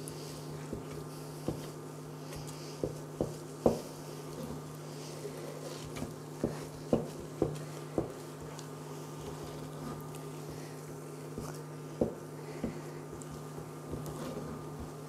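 A wooden spoon knocks and scrapes against a stainless steel pot as thick cornmeal mush is stirred, with irregular knocks. Underneath is the steady hum of the electric hob under the pot.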